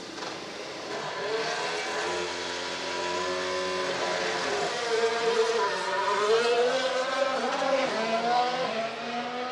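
Renault R.S.17 Formula 1 car's 1.6-litre turbocharged V6 hybrid engine running at low revs, then revving up and down as the car pulls away from the garage. It grows louder from about five seconds in.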